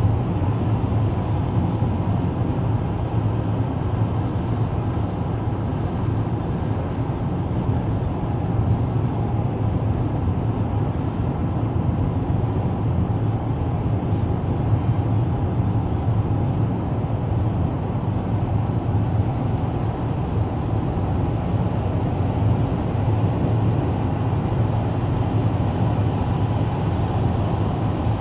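Steady tyre and engine noise of a car cruising at highway speed, heard from inside the cabin as a low, even drone.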